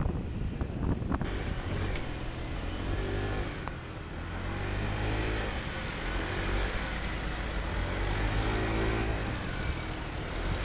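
Motor scooter riding in city traffic: the engine rises and falls in pitch twice as it speeds up and eases off, over a steady low rumble of wind on the microphone.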